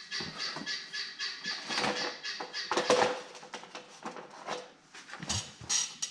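Guinea fowl calling in a rapid, rhythmic chatter of about four calls a second, becoming more ragged later, with a few sharp knocks mixed in about two to three seconds in.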